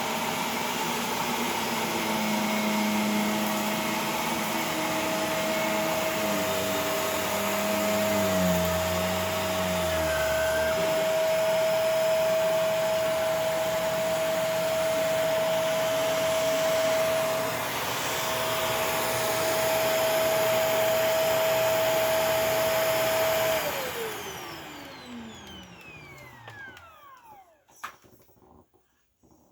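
Shark Rotator Professional Lift-Away vacuum cleaner running steadily with a steady whine while it picks up sawdust. Near the end it is switched off, and its motor whine falls in pitch and fades as it spins down.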